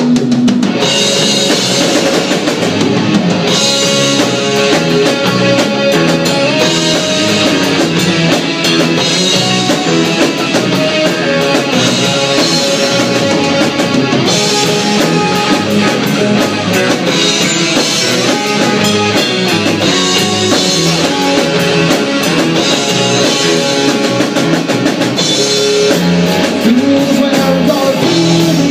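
Live rock band playing: electric guitar, bass guitar and drum kit together in a steady, loud, full-band passage.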